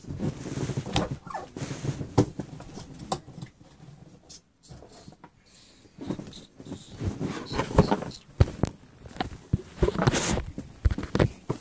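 Rustling, scraping and knocking of things being handled: a box of football cards being pulled out and moved, with the phone bumped about. There is a quieter lull in the middle, then busier knocks and scrapes again.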